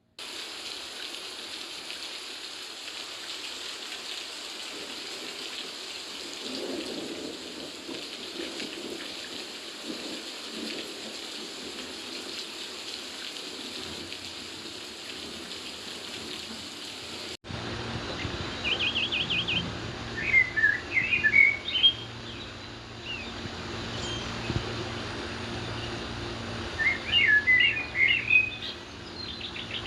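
Steady rush of a river and waterfall water. After an abrupt cut about halfway through, the water goes on under small birds chirping in quick clusters of high calls, loudest in two spells.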